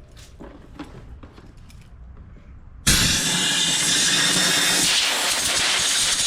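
Compressed-air blow gun blasting air through an emptied mower fuel tank to clear out stale fuel, starting suddenly about three seconds in as a loud, steady hiss. Before it, a few light clicks of handling.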